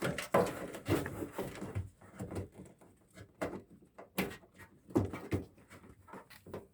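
Irregular clicks and knocks of a washing machine's door and door latch being handled and pushed shut, with a few sharper clacks in the second half.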